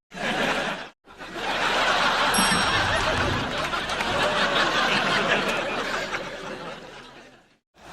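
Sitcom studio audience giving a collective drawn-out 'oooh' reaction, mixed with some laughter. Two clips: a short one cut off about a second in, then a longer one that swells and fades out near the end.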